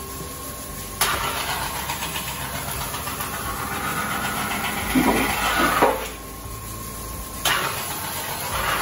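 Large wet grinding wheel running with a steady hum, then a deba knife's back pressed against it with a wooden board from about a second in: a loud hissing grinding rasp that grows louder around five to six seconds, stops when the blade is lifted, and starts again about a second and a half later. This is the grinding of the hollow on the back of the blade, the stone's contact changed to set how deep the hollow is.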